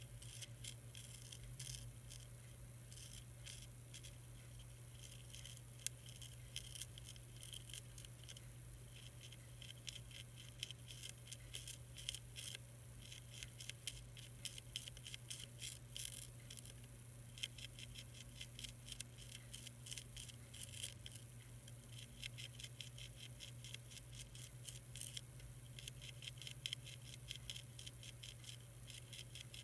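Monarch caterpillar chewing a milkweed leaf: a fast run of faint, crisp clicks that comes and goes in spells, over a steady low hum.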